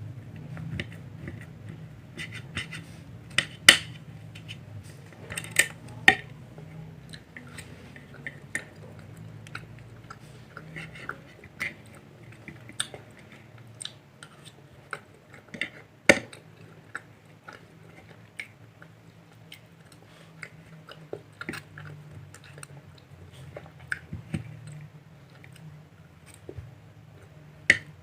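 Someone eating at a table: scattered clinks of cutlery against a plate or bowl, with chewing, over a steady low hum.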